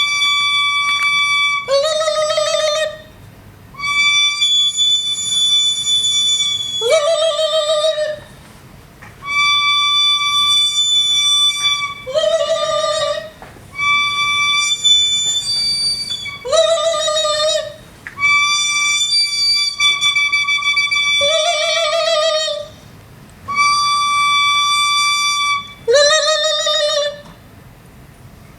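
A wind instrument played as a repeated two-note phrase, six times: a long steady high note, then a short lower note that bends upward with a wavering tone, with a brief pause before each repeat.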